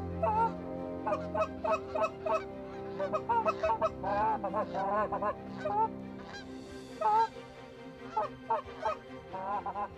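A flock of Canada geese honking in flight, many short calls overlapping, with a brief lull a little past the middle.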